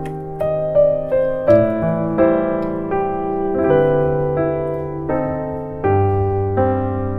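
Background piano music: a slow, gentle melody of single struck notes over sustained low bass notes.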